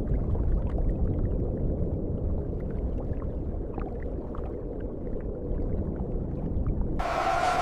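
Rushing water: a steady low rumble with faint small splashes over it. About seven seconds in, a brighter, louder noise with a steady tone cuts in.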